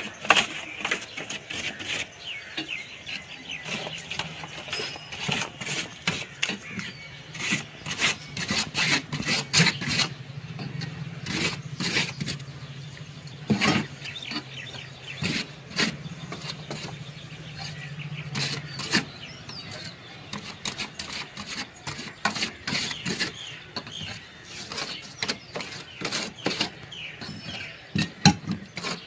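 Irregular knocks, clicks and rubbing from hand work inside an emptied chest freezer cabinet as parts are pressed into place against its inner walls. A low steady hum runs underneath from about four seconds in until past the middle.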